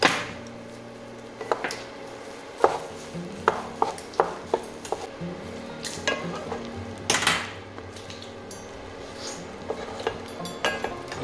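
Wooden spatula stirring fried rice in a nonstick frying pan, with irregular knocks and scrapes of the spatula against the pan.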